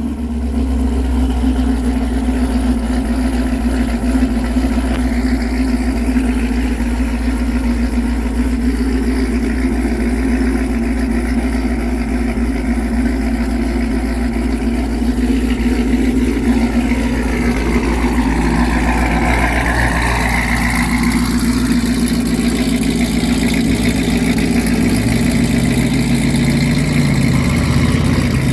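Engine of a roughly 1000-horsepower modified Cadillac CTS-V idling steadily, with its low tone shifting slightly near the end.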